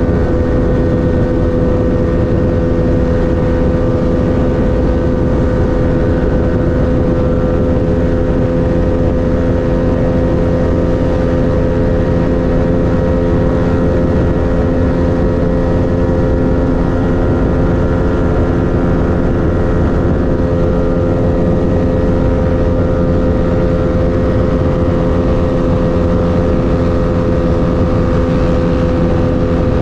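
Motorcycle engine running at a steady cruising speed, its hum holding one pitch, under heavy wind rush on the microphone.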